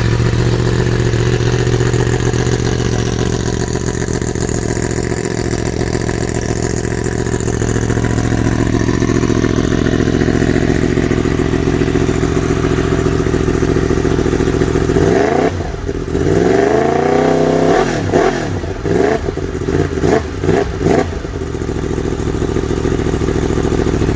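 Yamaha MT-10's crossplane inline-four motorcycle engine idling steadily through its exhaust. About fifteen seconds in it is revved once, rising and falling back, then blipped about five times in quick succession before settling back to idle.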